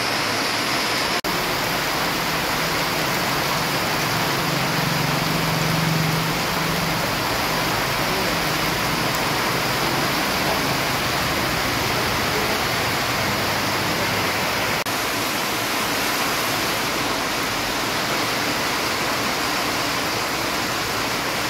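Heavy rain falling steadily, an even hiss.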